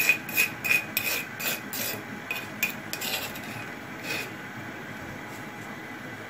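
A spoon scraping ground spice paste off into the pot in quick short rasping strokes, about three a second, with one last stroke about four seconds in.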